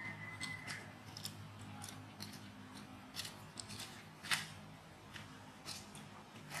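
Irregular sharp clicks and snaps, about a dozen spread unevenly, the loudest about four seconds in, over a faint steady low hum.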